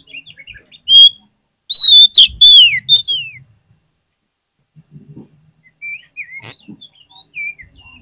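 Oriental magpie-robin (kacer) singing: soft twittering, then a loud burst of clear whistles with falling slurs about two to three seconds in, then soft twittering again. A single sharp click about six and a half seconds in.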